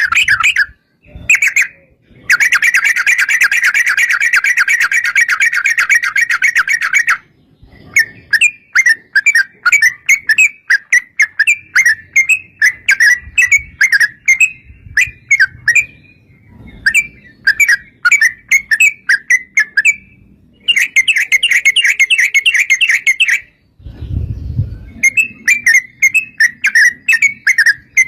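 Yellow-vented bulbul (trucukan) song: fast, bubbling, chattering calls. It comes in a long unbroken run early on, choppier phrases through the middle, and another dense run near the end, with a brief low rumble just after that.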